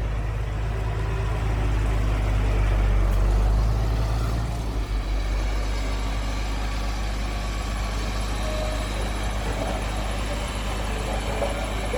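Heavy diesel engine of earthmoving machinery running steadily with a deep, low engine note, growing a little louder about two to four seconds in.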